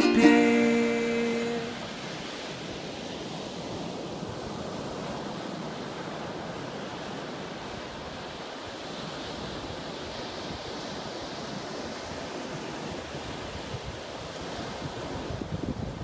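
A ukulele song ends on a held chord in the first couple of seconds. Then ocean surf washes steadily onto the beach, and wind rumbles on the microphone near the end.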